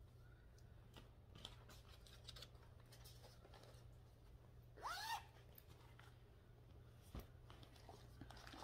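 Near silence over a low steady hum, with faint rustles and clicks of cross-stitch project bags and fabric being handled. A brief sliding, pitch-bending sound comes about five seconds in, and a soft knock follows a couple of seconds later.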